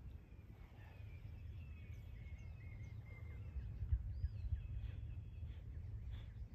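Outdoor ambience: small birds chirping faintly over a low, steady rumble.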